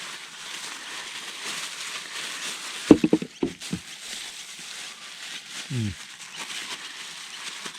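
Plastic freezer bag of vegetables and seasoning rustling and crinkling as it is handled and mixed, with two brief low voice sounds, about three seconds in and near six seconds.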